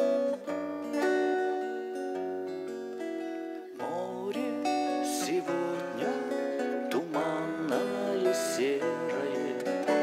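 Two acoustic guitars playing an instrumental passage of a hymn: held chords at first, then from about four seconds in a busier fingerpicked melody of short plucked notes.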